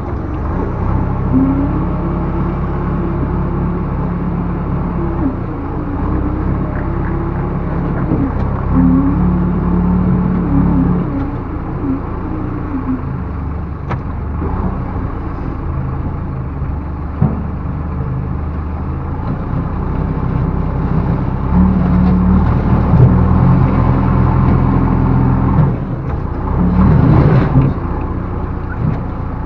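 Backhoe loader's diesel engine running and repeatedly revving up and easing off as the machine works, with a couple of sharp knocks along the way.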